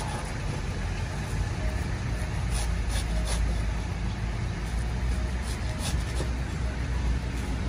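Low rumble of a motor vehicle engine running close by, heaviest through the middle. Over it come a few sharp knocks as a cleaver chops into the husk of a young green coconut.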